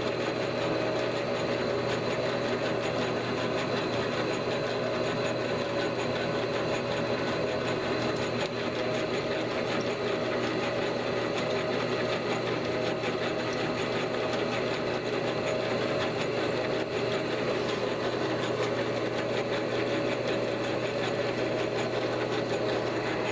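Enco 9x20 benchtop metal lathe running at a steady speed, its motor and gear train giving a steady mechanical hum with several steady tones, while a turning tool cuts a shoulder on small round bar stock.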